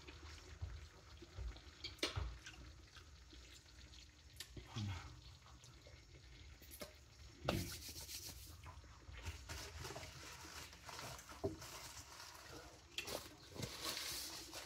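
Quiet kitchen handling noise: scattered light clicks and knocks, with a spell of dry rubbing as hands are rubbed together about halfway through.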